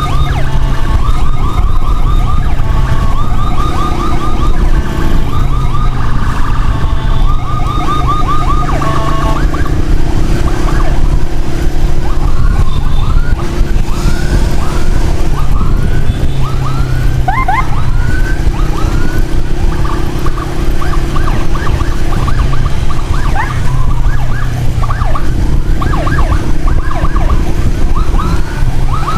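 Emergency siren sounding loud and continuous, a fast warble that changes about ten seconds in to quick repeated rising whoops, over a steady low rumble of traffic and wind.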